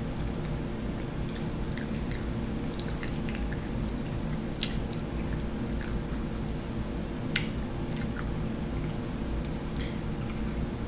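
A person chewing crispy breaded vegan chicken tenders, heard faintly as a few soft mouth clicks and smacks over a steady low hum and hiss.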